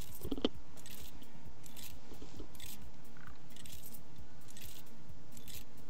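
Pen stylus scratching across a drawing tablet in short strokes, about one a second, over a steady low hiss.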